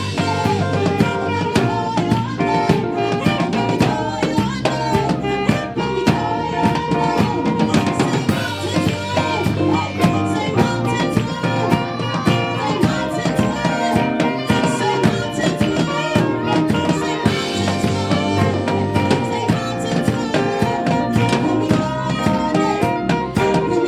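Live gospel band playing an instrumental stretch, with a busy drum kit keeping a steady beat under held pitched notes.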